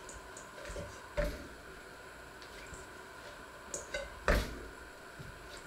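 Dough being kneaded by hand in a stainless steel bowl: soft handling sounds with two sharp knocks of the metal bowl, one about a second in and a louder one about four seconds in, and a few small clicks just before it, over a faint steady hum.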